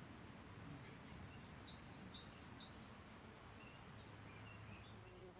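Faint birdsong: strings of short, high chirps from a small bird, a first run about a second and a half in and a slightly lower run near the end, over a low background hiss.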